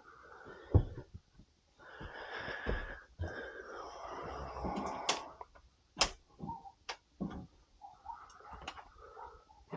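Hands-on work at a furnace's inducer assembly: a heavy knock a little under a second in, a few seconds of scraping and rustling, then several sharp metallic clicks and small knocks.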